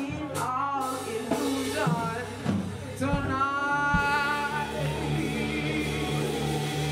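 A woman singing into a microphone over electronic keyboard accompaniment. Her voice bends through a melodic line and holds one long note about three seconds in, then fades, leaving the keyboard's sustained chords and bass notes.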